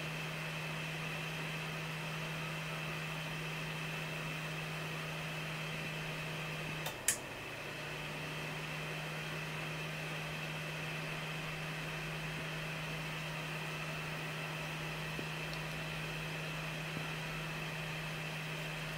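Steady electrical hum with a faint hiss from a 1 W RGB laser galvanometer scanner setup running. About seven seconds in there is a sharp click, the hum drops out for a moment, then it resumes.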